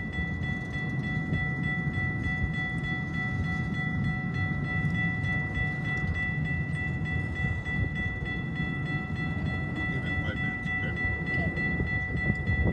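Double-stack intermodal freight train rolling slowly past as it slows down: a steady low rumble of the cars on the rails, with a steady high-pitched squeal over it.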